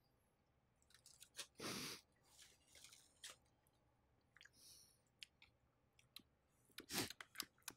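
Faint chewing and mouth noises close to the microphone, with scattered soft clicks and two slightly louder short noises, about two seconds in and near the end.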